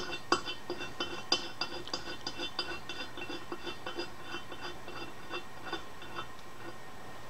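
Rapid light metallic clicking, about four clicks a second with a ringing edge, fading out near the end: steel parts of a log splitter's wedge assembly being worked by hand to check that they move freely.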